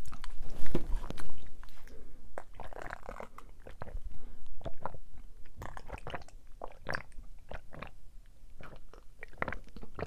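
Close-miked mouth sounds of a man chewing gummy vitamins, then gulping orange juice from a glass: a run of short clicky swallows.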